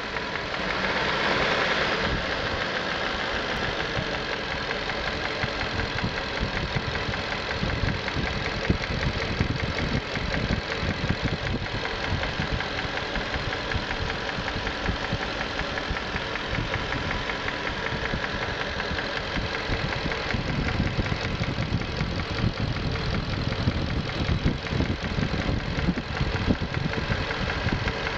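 1994 Infiniti Q45's V8 engine running at idle with a steady fast ticking and rattle, the valve and timing chain noise the owner is recording. It is briefly louder about a second in.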